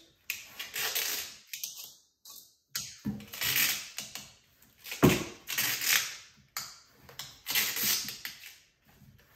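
Exterior painter's tape being pulled off the roll again and again, each pull a short ripping hiss as the tape is wrapped tight around the edge of a cardboard filament spool. There is a sharp knock about five seconds in.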